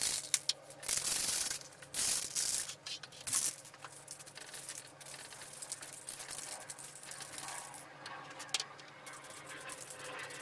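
Dupli-Color aerosol spray paint can hissing in four short bursts over the first few seconds, then fainter clicks and rustles as the painted plastic parts are handled.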